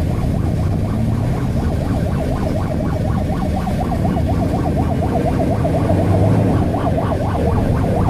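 Ambulance siren sounding a rapid up-and-down yelp, repeating without pause, over a steady low rumble of road traffic.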